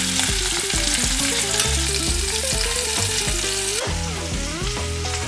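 Chicken drumsticks and sliced ginger sizzling in sesame oil in a frying pan as they are turned with a spatula. The sizzle drops in level nearly four seconds in.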